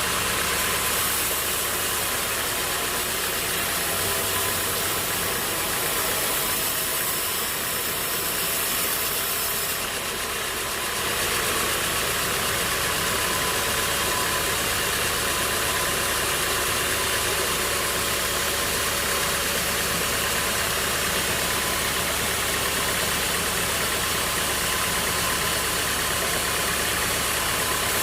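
Sawmill machinery running steadily, an engine-like drone under a dense hiss, with a brief dip in level about ten seconds in.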